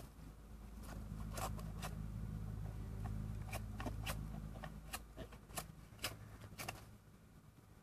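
Low steady hum of giant honey bees buzzing around an exposed honeycomb, fading out near the end. About a dozen sharp clicks and crackles are scattered through it.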